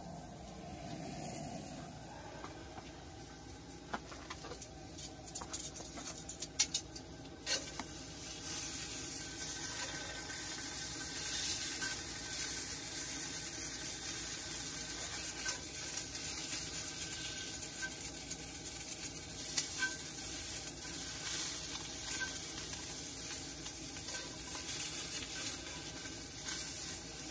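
Cheddar bratwursts frying in a pan on a camp stove: a steady sizzle that grows louder about eight seconds in, with a few sharp clicks of metal tongs turning them.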